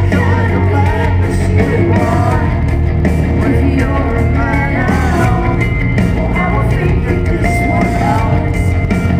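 Live rock band playing loudly: a woman sings lead over electric guitar, bass and drums, heard from within the arena crowd.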